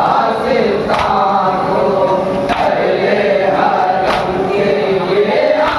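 Men chanting a noha, a Shia mourning lament, together. Sharp slaps of chest-beating (matam) land in unison about every one and a half seconds.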